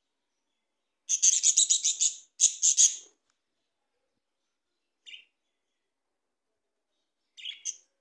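Budgerigars chirping in quick high chattering bursts: a long run of rapid chirps about a second in, a shorter run straight after, then a single short chirp and a brief burst near the end.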